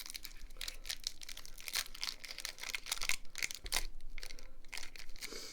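Pokémon booster pack's foil wrapper crinkling and tearing as it is ripped open by hand, a dense run of crackles.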